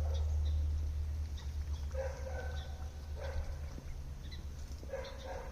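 Ducks calling: three short, low calls spread over a few seconds, with faint high chirps between them, over a steady low rumble.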